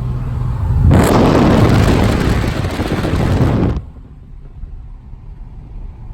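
A car giving a loud, rough roar for nearly three seconds, starting about a second in and cutting off suddenly, after which a low engine rumble carries on.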